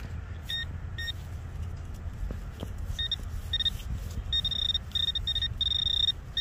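Handheld metal-detecting pinpointer probing a dug hole and beeping. It gives two short beeps near the start, then from about three seconds in the beeps come quicker and run almost together near the end, the sign that it is closing in on a metal target.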